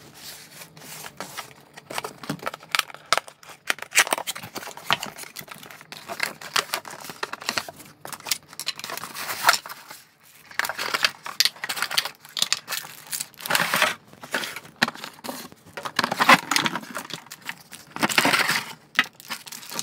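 Product packaging being opened and unpacked by hand: crinkling and rustling in irregular bursts, with two short pauses near the middle.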